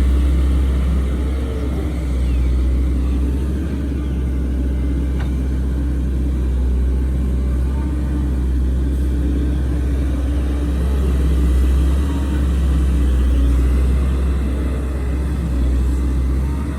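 Diesel engine of heavy earthmoving machinery running with a steady low rumble.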